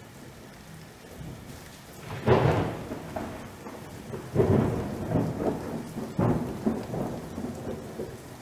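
A steady hiss under three loud, deep rumbling booms about two, four and a half, and six seconds in, each fading away over about a second. The first boom is the loudest.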